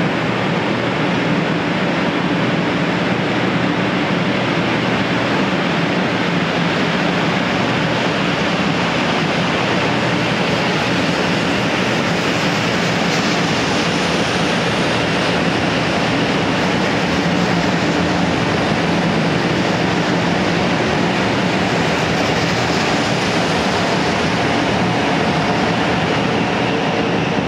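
A Hello Kitty–liveried 500 series Shinkansen pulling out of a station, its cars passing with a steady running noise.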